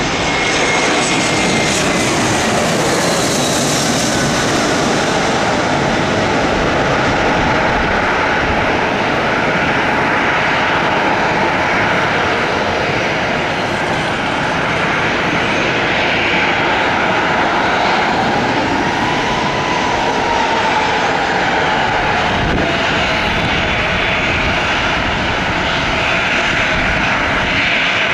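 Airbus A321's twin IAE V2500 turbofans passing low overhead on final approach: a loud jet roar with whining tones that fall in pitch in the first few seconds as it goes by. The roar then runs on steadily as the airliner lands and rolls out, with an engine tone rising and falling about two-thirds of the way in.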